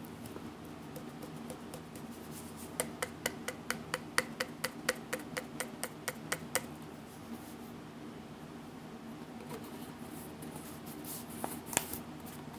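A hand tapping a Clabber Girl cornstarch canister to knock the powder out, a run of about twenty quick, even taps at roughly five a second lasting about four seconds. A few looser taps follow near the end.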